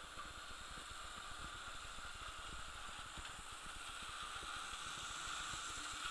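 Hornby model train running on the layout's track: a faint, steady whir from the locomotive's motor and wheels that grows louder as the train passes close.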